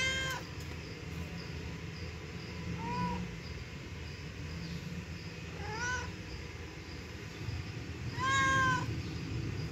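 Tabby cat meowing four times, about every three seconds, the last meow the longest and loudest. The uploader takes the meows for the cat calling for help.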